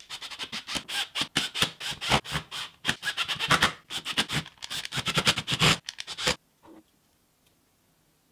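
A long screwdriver turning the screws of a Hitachi DH 15DV cordless rotary hammer drill's plastic housing: a fast run of scratchy clicks and scrapes for about six seconds that stops abruptly.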